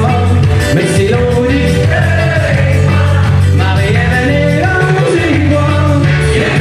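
Live pop-rock song: a man singing to his own acoustic guitar over a steady low bass line.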